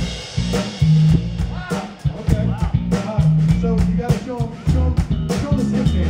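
Live rock band playing a steady groove on drum kit, bass and electric guitar, opening with a cymbal crash.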